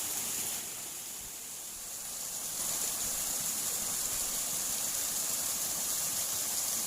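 Steady rushing of water flowing in a small ditch, with an even high hiss. It eases off for a couple of seconds about half a second in, then comes back.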